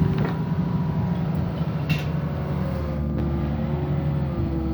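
Excavator diesel engine running steadily, with a sharp metallic click about two seconds in and a faint whine wavering in pitch in the second half.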